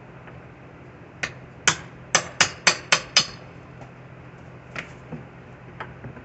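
Hammer blows in a quick run, seven strikes at about four a second, each with a short metallic ring, followed by a few fainter knocks near the end.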